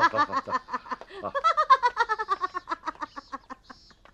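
A person laughing in a long, rapid run of 'ha-ha-ha' that thins out and fades away near the end.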